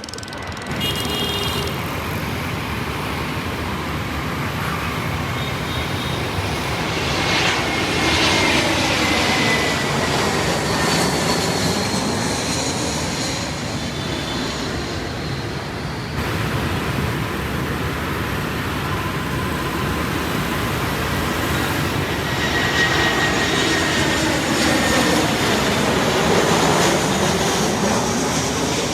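Jet airliners passing close by on landing approach, one after another. Each swells in a jet engine rush with a whine that falls in pitch as it goes by. The sound changes abruptly about 16 seconds in, as the second aircraft begins.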